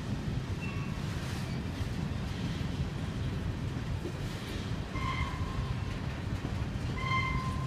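Freight train of covered grain hopper cars rolling past at a steady speed, its wheels on the rails making a continuous low rumble. Two brief high-pitched wheel squeals come in the second half.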